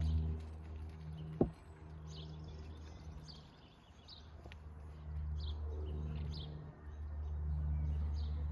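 A small bird chirping about once a second, with a low drone that fades and returns. There is one sharp knock about a second and a half in.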